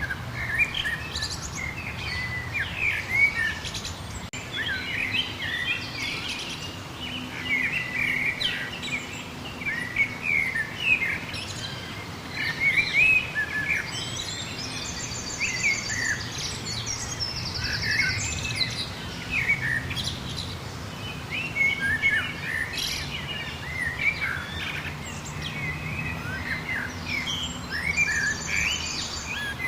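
A dense chorus of many small birds chirping and twittering without pause. A fast, high trill comes in around the middle and again near the end, over a steady low hum.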